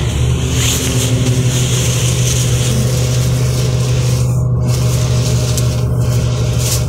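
Interior of a NefAZ 5299 gas-powered (CNG) city bus in service: a steady low engine hum with a constant rumble of noise heard from inside the passenger cabin.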